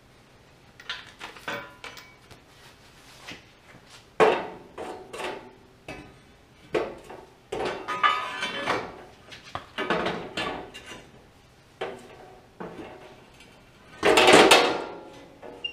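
Steel parts and tools being handled: a string of separate metallic clanks and knocks, some ringing briefly, with the loudest and longest clatter about fourteen seconds in, as a steel support-frame piece is set against the garden tractor's frame.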